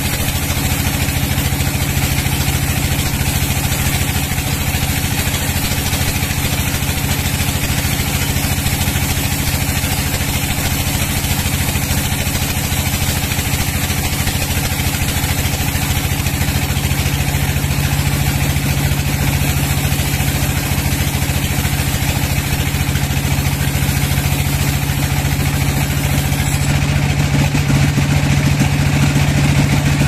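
Sawmill's engine running steadily at a constant speed, with an even hum and no change in pitch.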